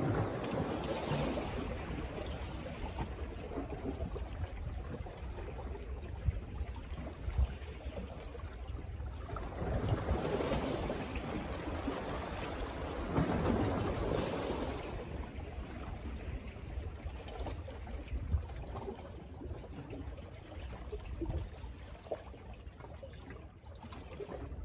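Sea waves washing against shoreline rocks, surging and ebbing, with wind rumbling on the microphone. The wash swells about a second in, and twice more around the middle.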